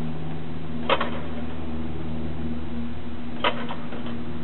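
A VariEze's flooded engine being started by hand-propping the propeller: two sharp pops about two and a half seconds apart, each with a couple of smaller ones after it, over a steady low hum.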